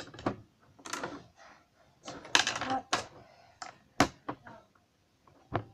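Plastic Lego pieces clicking and clattering as they are handled and pressed into place, in irregular bursts: a dense run of clicks a little past two seconds and a sharp single click at about four seconds.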